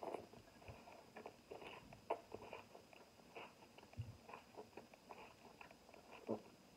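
Close-up mouth sounds of a person biting into a soft-tortilla carne asada taco, then chewing it, with many small wet clicks and lip smacks. The bite comes at the very start, and there is a sharper smack near the end.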